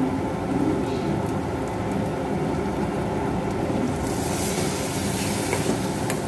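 Spiced soya-chunk mixture sizzling steadily in a hot steel pan. About four seconds in, water is poured into the pan and the sizzle turns louder and hissier.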